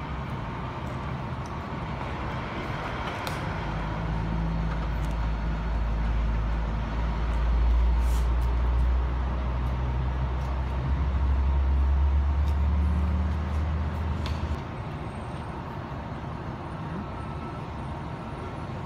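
A heavy vehicle's engine running with a deep, steady rumble that swells in about four seconds in and drops away about fifteen seconds in.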